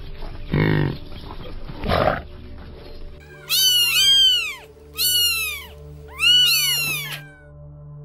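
A water buffalo gives two short, low calls, then a kitten meows three times in high, arching cries, over soft background music.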